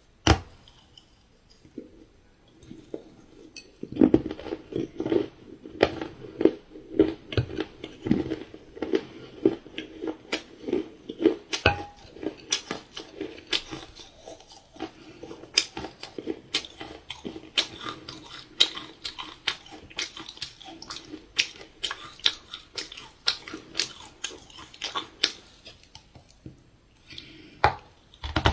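Close-miked chewing of dark chocolate pie, with many sharp, wet mouth clicks, starting about four seconds in.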